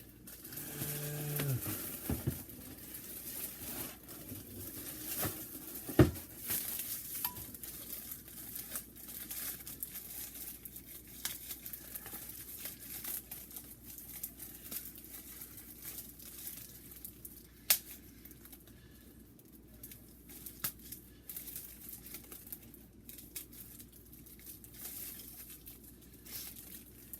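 Plastic and cardboard packaging of a new coffee maker crinkling and tearing as it is unpacked, with scattered clicks and a few sharp knocks, the loudest about six seconds in.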